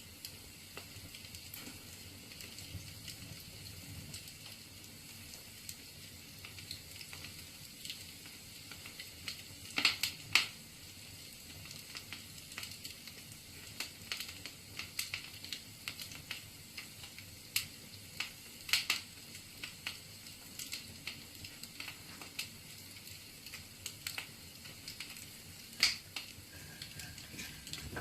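Wood fire crackling in a fireplace: a steady soft hiss with scattered sharp pops of burning logs, a few louder pops about ten seconds in, near the middle and near the end.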